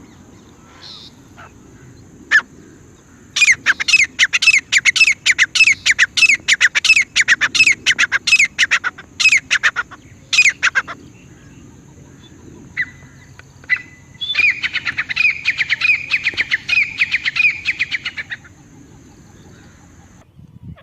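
Grey francolin calling: a long run of loud, sharp, rapidly repeated calls, then after a pause a second, quicker and denser run.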